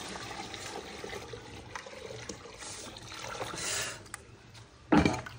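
Water pouring and trickling into a bucket. A short, sudden, loud sound comes near the end.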